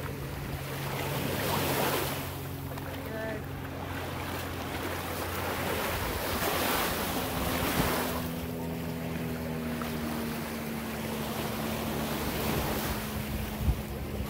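Small waves washing in at a sandy shoreline, the wash swelling and fading roughly every five seconds, with wind rumbling on the microphone. A steady low hum runs underneath.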